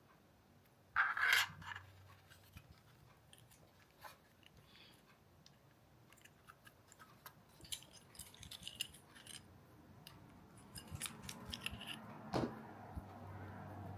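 Handling noise from small hard objects: scattered light clicks and ticks, a louder scraping rustle about a second in, and one sharp knock near the end.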